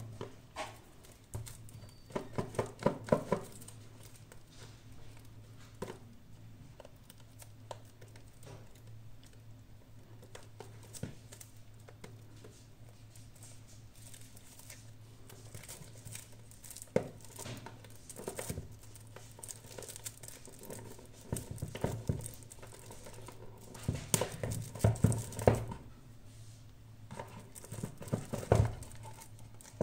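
Smartphone packaging being handled in an unboxing: crinkling, rustling and light clicks of plastic and cardboard, coming in irregular bursts over a steady low hum.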